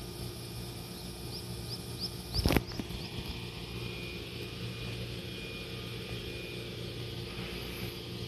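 Stationary electric train standing at a platform with its doors open, its on-board equipment giving a steady low hum. About two and a half seconds in there is a single loud thump, just after a run of short high chirps.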